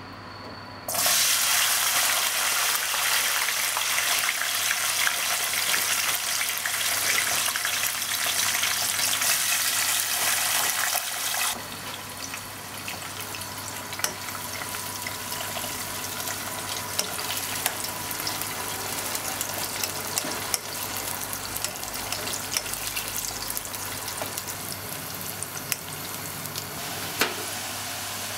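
Raw potato strips for french fries deep-frying in a pot of hot oil: a loud, dense sizzle starts suddenly about a second in as the potatoes hit the oil. Partway through it drops to a quieter, steady sizzle with scattered crackles.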